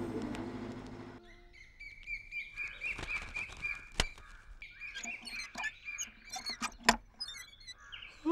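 Background music fades out in the first second, then frogs croaking and birds calling, with a pulsing call holding one pitch through the middle. Two sharp clicks, one about halfway and one near the end.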